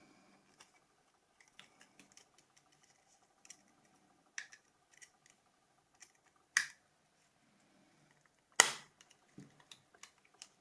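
Scattered light clicks and snaps of plastic parts of a Nokia 2600 phone being handled and pried apart, with three sharper snaps about four and a half, six and a half and eight and a half seconds in.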